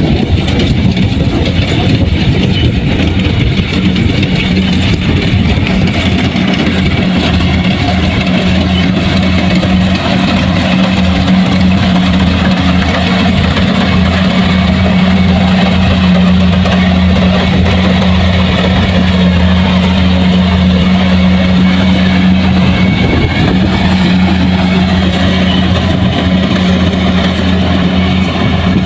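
Kubota rice combine harvester running steadily, the even drone of its diesel engine.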